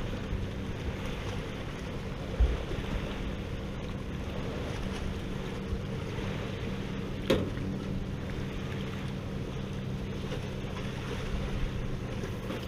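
Wind on the microphone over a steady hiss, with a low thump about two and a half seconds in and a sharp click about seven seconds in. Near the end, beef patties go onto the hot stainless Kuuma 160 propane grill and start to sizzle.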